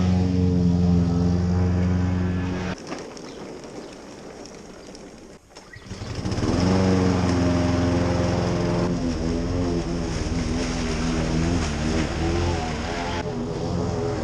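Tractor engine running steadily. It drops away suddenly about three seconds in and comes back up to full level about six seconds in.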